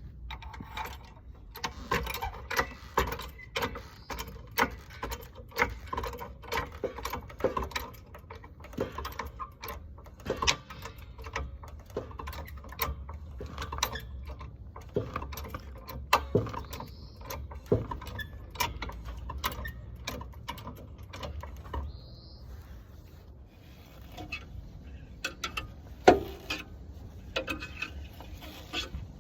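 Jack-up work on a Eunos Roadster (Mazda MX-5): the car jack being worked makes a loud run of clicks and clatter. Behind it a knocking, "kon, kon", comes from the suspension, the abnormal noise under investigation. Several sharp knocks stand out, with a low steady rumble underneath.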